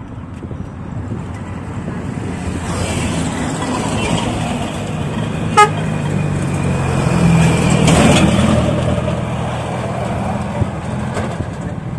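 Road traffic passing close by: motorcycles and a truck drive past, their engine noise building to a peak about eight seconds in. A short horn beep sounds about halfway through.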